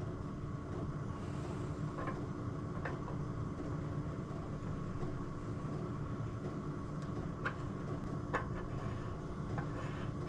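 Steady low hum in a workshop, with a few faint clicks and taps as a metal engine part is handled and fitted on by hand.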